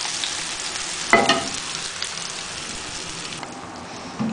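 Hot tempering of ghee and oil with fried onion, curry leaves, cumin and dried red chillies sizzling as it hits the curry, the hiss fading away. A short squeak about a second in and a low knock near the end.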